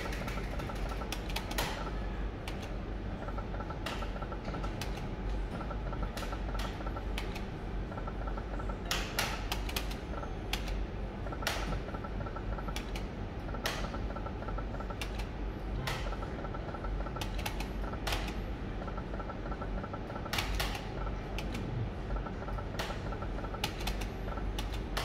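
Shining Crown video slot machine in play: sharp clicks at irregular intervals, often a couple of seconds apart, as spins are started and the reels stop, with faint short electronic beeps repeating over a steady low hum.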